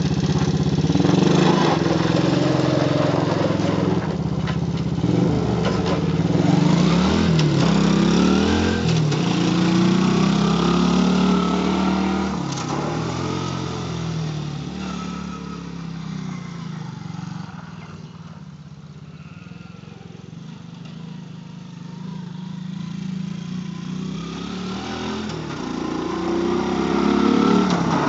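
Small quad bike engine revving up and down as it pulls away, its pitch rising and falling with the throttle. It fades as the bike gets farther off around the middle, then grows louder as it comes back near the end.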